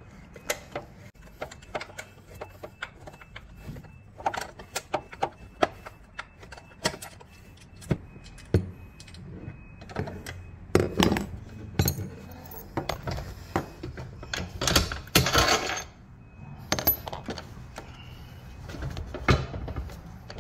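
Metal tools clicking and clinking on steel bolts: a hex driver and a wrench working a bolt loose on a rowing machine's steel frame, with a longer scraping rasp about fifteen seconds in.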